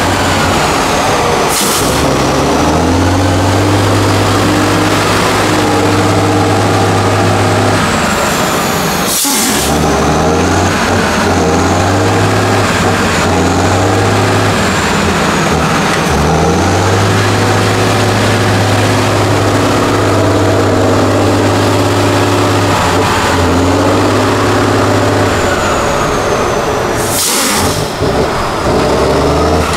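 Heavy off-road truck diesel engine running under load and revving up and down repeatedly, with a few short sharp hisses.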